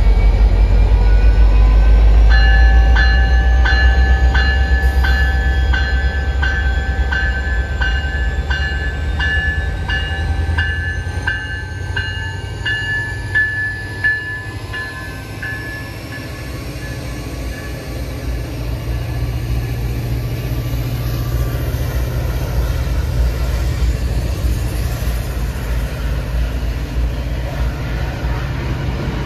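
EMD F40PH-3C diesel locomotive running loud, with the heavy rumble of its 16-cylinder 645 prime mover easing after about 11 seconds and a whine that rises slowly in pitch. Its bell rings steadily from about two seconds in and stops about 15 seconds in.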